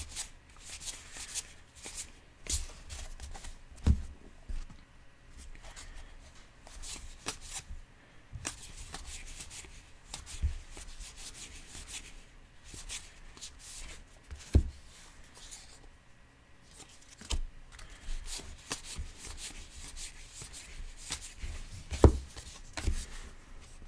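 A stack of 2019 Topps Allen and Ginter baseball cards flipped through by hand, each card sliding off the pack with a quick papery rustle and click. A few dull thumps come as cards are set down on the table, the loudest near the end.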